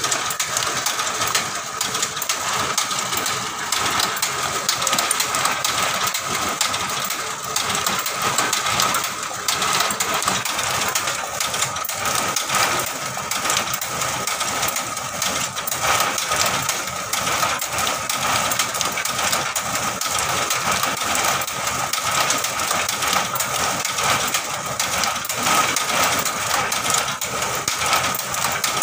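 Motorised cashew-nut shelling machine running steadily, with a constant whine and a dense, irregular clicking and rattling of cashew nuts and shells going through it.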